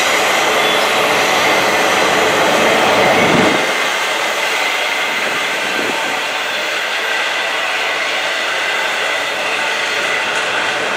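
Double-stack intermodal container well cars rolling by on steel wheels and rails, a steady rushing rumble. It is louder in the first three and a half seconds, then settles a little quieter.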